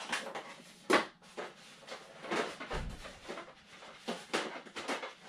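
Handling noise as a wide LiPo battery pack is pushed into the battery compartment of a foam RC jet fuselage: irregular scrapes, rustles and knocks, with a sharp knock about a second in and a dull thump near the three-second mark.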